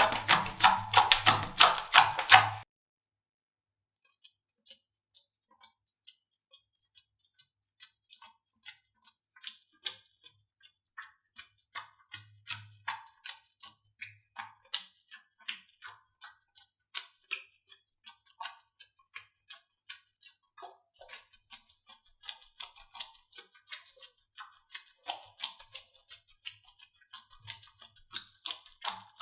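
Music with a beat for the first two seconds or so, cutting off suddenly. Then slime being pressed and squeezed by hand, giving sharp little clicks and pops that start sparse and build to a few a second.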